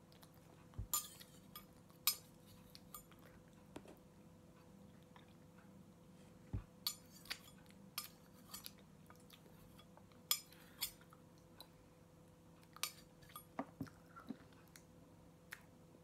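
A knife and fork clinking and scraping against a ceramic plate while pancakes are cut and eaten: about a dozen short, sharp clinks at irregular intervals.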